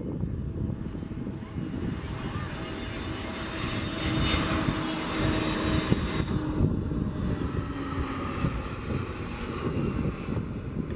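Turbofan engines of an Airbus A320neo airliner on short final, passing close as it flares over the runway: a steady jet noise with a thin high whine, growing louder about four seconds in.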